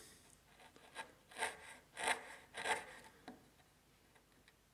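A sharp wood chisel pushed by hand, paring into the corners of a notch in a hardwood block: about five short slicing strokes half a second or so apart, ending about a second before the end. This is the clean-up paring that leaves the recess flat and crisp.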